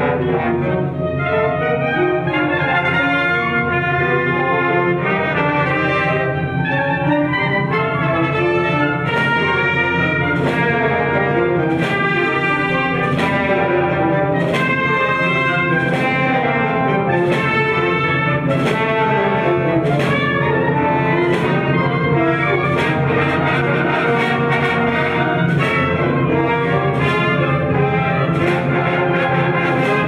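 Instrumental background music, orchestral with brass, playing steadily with no speech.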